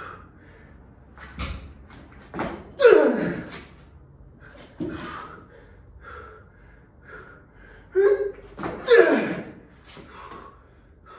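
A series of knocks and clanks of barbell weight plates being handled, about seven in all, each with a short ringing tail that falls in pitch. The loudest come about three seconds and nine seconds in.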